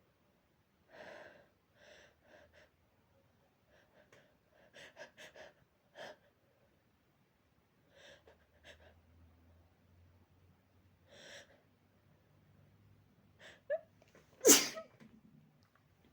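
Allergic sneezing from a dog allergy: a series of short, soft breaths, then a quick sharp inhale and one loud sneeze near the end.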